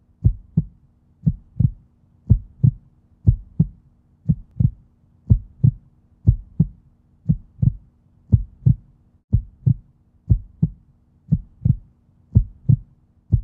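Heartbeat sound effect: pairs of low thumps in a lub-dub pattern, about one pair a second, steady throughout.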